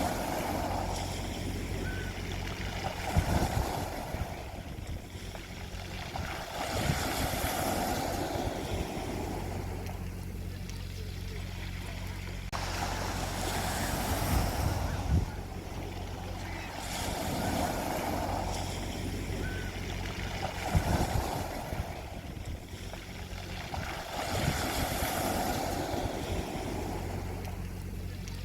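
Sea waves breaking on a beach: surf swelling and washing back every few seconds, with a low thud as some waves break, over a steady low rumble.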